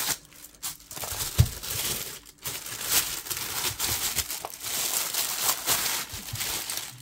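Packaging crinkling and crackling as a watch box is unwrapped by hand, with a few light knocks of the box being handled.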